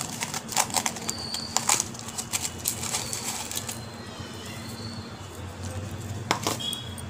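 Light clicks and rustling, like kitchen items being handled, thick in the first few seconds and again briefly near the end, over a steady low hum.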